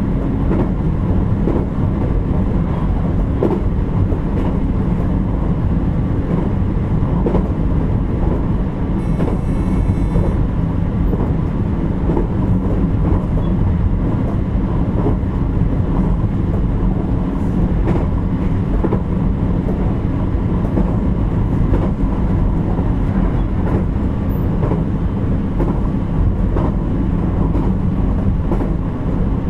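Running sound of a JR Kyushu 817 series electric train, in motor car KuMoHa 817-1009, under way: a steady rumble of wheels on rail with scattered light knocks. A brief high tone comes about nine seconds in.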